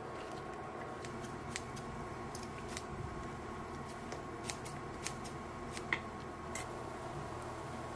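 Scattered light clicks and taps of utensils against dishes, about ten over several seconds, over a steady background hum.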